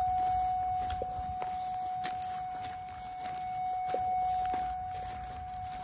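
Vermeer Verifier G3 utility locator receiver sounding one steady, unbroken tone as it is swept along a buried power line in power mode. A few faint footsteps crunch on gravel under it.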